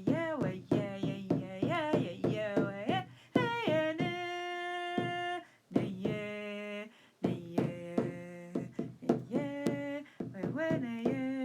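Wordless chanting in a sung voice, with sliding notes and long held tones, over a steady beat on a hand drum.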